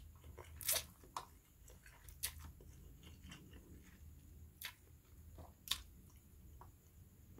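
Close-up eating sounds of a person slurping and chewing instant fried noodles: soft chewing broken by several short, sharp slurps and mouth smacks, the loudest a little under a second in.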